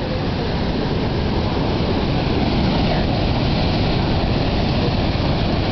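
Steady noise of large Atlantic surf breaking, with a low wind rumble on the microphone.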